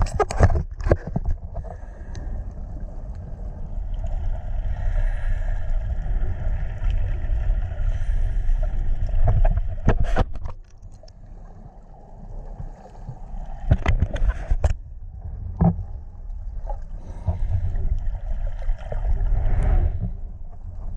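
Underwater rumble and sloshing of water around a handheld camera as a snorkeler swims. There are splashes about ten seconds in as the camera breaks the surface, then it goes quieter for a few seconds. More splashes follow as the camera goes back under.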